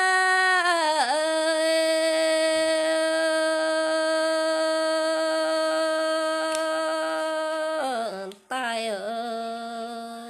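A single voice singing long held notes of a Red Dao folk song: one note sustained for about eight seconds, a brief break, then a lower note that fades away near the end.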